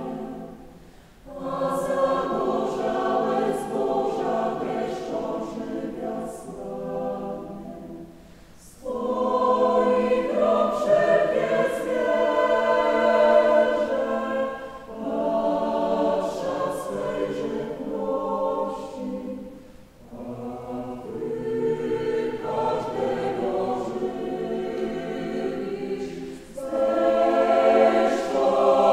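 Mixed choir of women's and men's voices singing unaccompanied in several parts, in phrases broken by short breaths about every six seconds.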